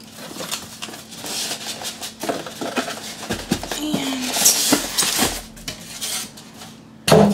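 Cardboard box flaps and a foam packing insert being handled and pulled out of a box: rustling, scraping and scattered knocks, busiest around the middle.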